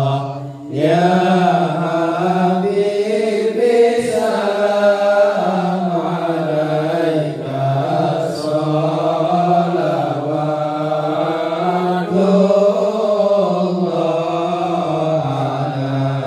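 Group of men chanting sholawat in unison without instruments, a Serakalan devotional recitation in Arabic sung as long, slowly gliding melodic lines. There is a short pause for breath about half a second in.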